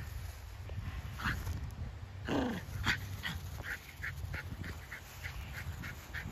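Small terrier whining in short high squeaks, about three a second, with one longer whine falling in pitch about two seconds in.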